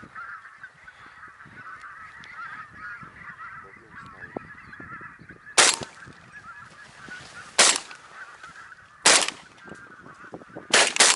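A flock of geese honking and chattering without a break, over which a shotgun fires five shots: the first about five and a half seconds in, then one every one and a half to two seconds, the last two in quick succession.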